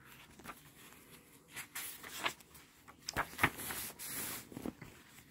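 A picture book's paper page being turned and pressed flat by hand: soft rustling of paper with a few short crackles and taps through the middle.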